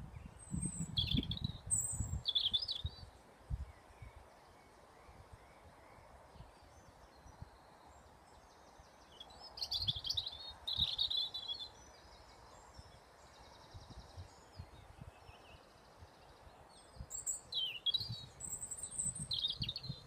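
Songbirds singing in three short bursts of quick, high warbling notes, about eight seconds apart, over a faint steady hiss. Low buffeting on the microphone comes with the first and last bursts.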